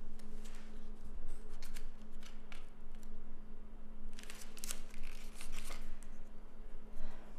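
Light rustling and small clicks of something being handled in the hands, busiest about four to six seconds in, over a steady low hum.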